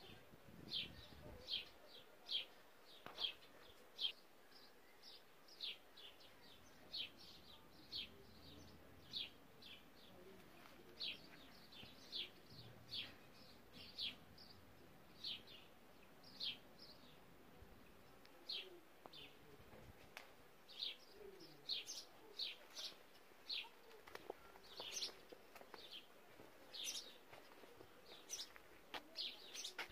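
Small birds chirping: short, high chirps that fall in pitch, one or two a second, over a faint outdoor hush.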